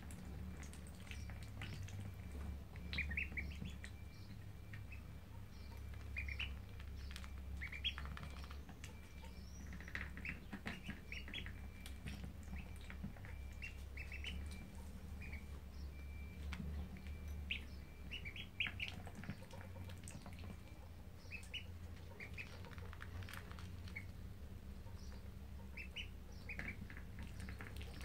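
Ducklings peeping: short, high chirps in scattered clusters, over a steady low hum.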